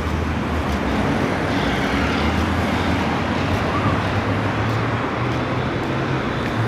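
Steady road traffic noise from a busy multi-lane road: cars and motorbikes running past, with a low engine drone underneath.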